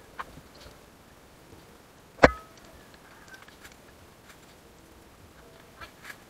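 Scattered small clicks and knocks of hands handling metal parts on a bare motorcycle frame, with one sharp metallic knock and a brief ring a little over two seconds in.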